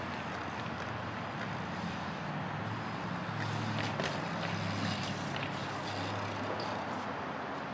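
Steady traffic noise from a highway beside the skate park, a constant low rumble of passing cars and trucks. A few light clicks and knocks, from BMX bikes on the concrete, come around the middle.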